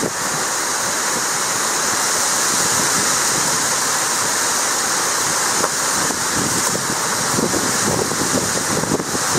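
Storm rain and wind as a loud, steady rushing noise, with gusts buffeting the microphone from about halfway through.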